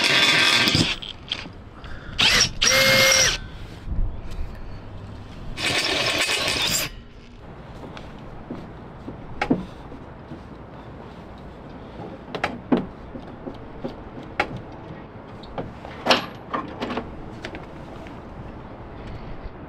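Power drill boring into a metal square tube with a resharpened twist bit, running in short bursts under load: one at the start and two more a few seconds apart. After that, only scattered light knocks and clicks of metal and tools being handled.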